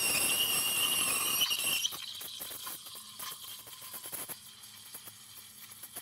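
ECM Technika IV steam wand with a two-hole tip steaming milk in a stainless pitcher: a loud hiss with a high whistling squeal while the milk is stretched. About two seconds in, the whistle stops and it settles to a quieter, steady hiss as the milk rolls.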